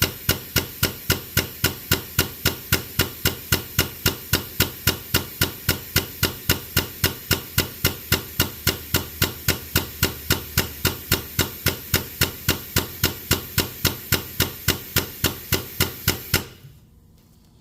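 Rapid, evenly spaced hammer blows, about three or four a second, that stop abruptly near the end.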